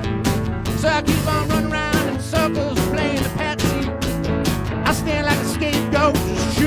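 Americana rock band playing an instrumental passage: a steady drum beat under a lead line that bends up and down in pitch.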